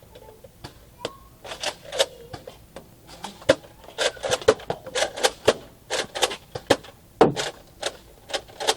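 Plastic clicks and clacks of Nerf foam-dart blasters being primed and fired: an irregular run of sharp clicks, sparse at first and getting busier after about a second and a half.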